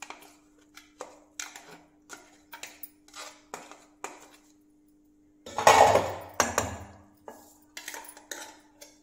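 Clinks and taps of a steel mixer-grinder jar and its plastic lid knocking against a steel pot as ground coconut is emptied out onto a straining cloth, with a louder, longer clatter about six seconds in.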